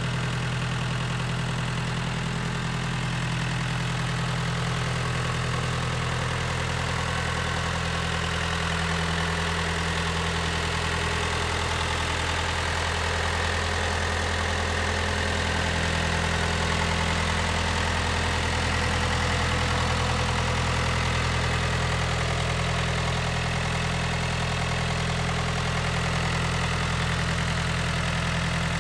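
Mitsubishi MTX 24 compact tractor's diesel engine idling steadily at an even, unchanging speed.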